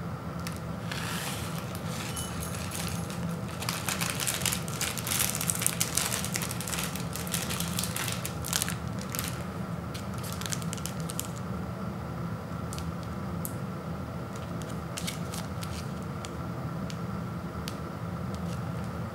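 Crinkling and crackling of a plastic ramen noodle wrapper and a foil seasoning packet being handled. The crinkling is densest about four to nine seconds in, then thins to scattered crinkles over a steady low hum.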